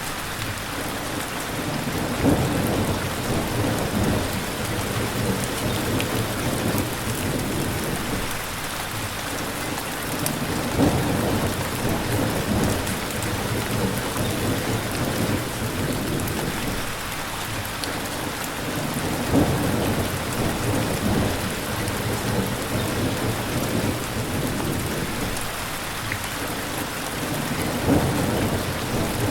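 Steady rain, with low rumbles of thunder that swell and fade about every eight or nine seconds.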